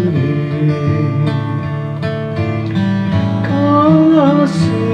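Steel-string acoustic guitar strummed in slow chords as a man sings, drawing out a wavering held note about three and a half seconds in.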